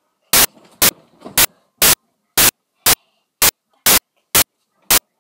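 Loud bursts of static, about two a second, each cutting in and out abruptly, with faint sound between them: a recording glitch, not a real-world sound.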